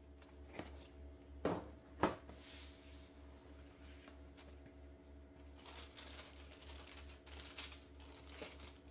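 Cardboard sneaker box handled and opened: a few sharp knocks, the loudest about one and a half and two seconds in, then soft rustling of cardboard and tissue paper.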